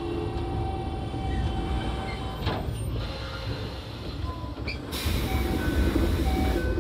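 Toei 5300 series subway car running, heard from inside the car above the line breaker: a steady low rumble of wheels on track with thin steady tones that shift in pitch in steps. A hiss starts about five seconds in.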